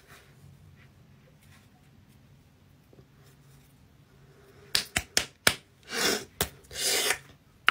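Near silence, then near the end a quick run of short lip smacks and clicks with two breathy puffs of air from the mouth.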